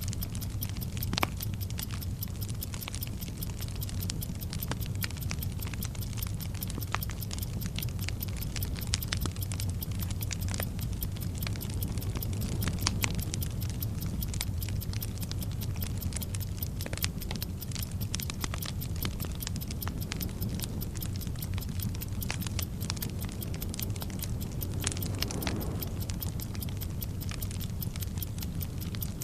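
Bomb-timer sound effect: a lit fuse crackling and sputtering with scattered sharp pops over a steady low rumble, with a clock ticking at an even fast pace.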